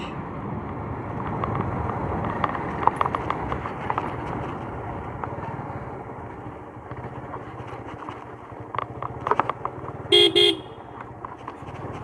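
Motorcycle riding along a dirt road, its engine, wind and tyre noise steady and then quieter in the second half. One short horn toot about ten seconds in.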